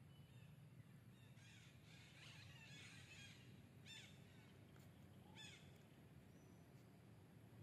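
Faint, high-pitched animal calls that fall in pitch: a cluster of squeaks about one and a half to three seconds in, then two short, sharper calls at about four and five and a half seconds, over a low steady background hum.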